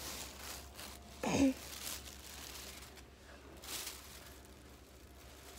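Rustling and handling noise from a carried phone as someone rummages for a shirt. About a second in there is a brief sound that slides quickly downward in pitch, the loudest moment, and another short rustle near the end.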